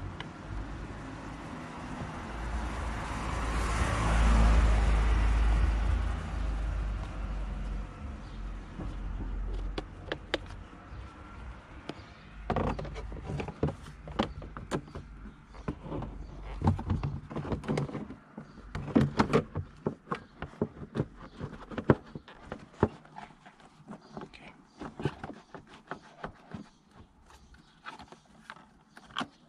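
A passing vehicle rises and fades over the first several seconds. Then many short plastic knocks and clicks as the engine's air filter housing and its cover are handled and pressed into place.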